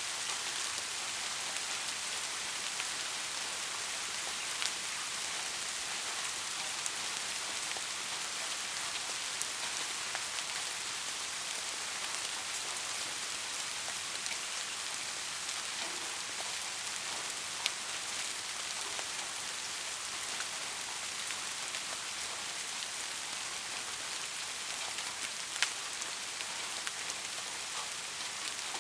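Steady rain falling, an even hiss with the occasional louder drop striking close by.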